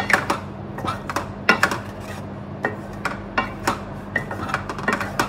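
Wooden spatula scraping and knocking irregularly against an aluminium kadai while stirring a thick mango and jaggery pachadi as it cooks down.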